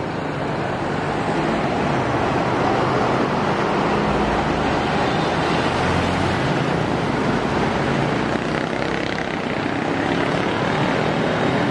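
Road traffic passing close: a large diesel coach driving by with a truck and motorcycles, a steady loud rush of engine and tyre noise whose deep engine rumble is strongest around the middle.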